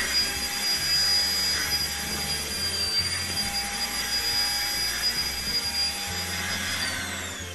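Deerma handheld bed vacuum cleaner running while vacuuming a bolster pillow: a steady motor noise with a high-pitched whine. Near the end the motor is switched off and winds down, its whine falling in pitch.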